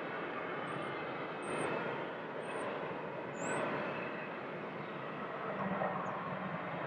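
Jet airliner engines heard as a steady rushing noise, with a low hum coming in about five and a half seconds in. Four short high chirps sound in the first half.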